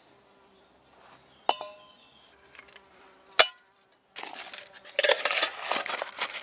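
Aluminium Trangia 27 cookset parts being stacked together. There is a ringing metal clink, then a sharp knock about two seconds later. Near the end comes a busy run of scraping and rattling as a pot is pushed down into the windshield.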